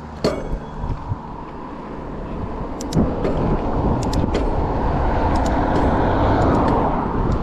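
Rushing wind on the microphone and tyre noise on asphalt, building steadily as an electric mountain bike accelerates in boost mode, with a few sharp clicks and a knock about three seconds in.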